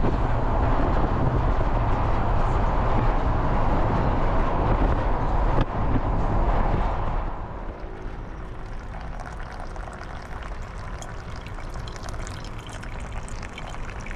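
Wind rushing past the microphone and road noise from a moving Volkswagen Kombi van, with a low engine hum underneath. The wind rush drops sharply about seven seconds in and stays quieter after that.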